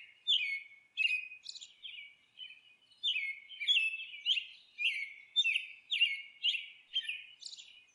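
A songbird chirping repeatedly: short notes that sweep sharply downward, about two to three a second, with a brief break a little under halfway through.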